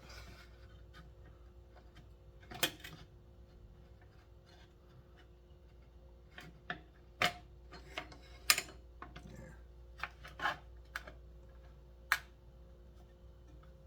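Scattered light clicks and knocks of small metal and plastic parts being handled as the recoil starter is fitted back onto a McCulloch 1-53 chainsaw, a dozen or so taps at uneven intervals, the sharpest about two-thirds of the way in and near the end.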